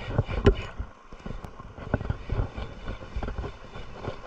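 Wind buffeting the microphone in irregular low thumps, with a faint steady hiss.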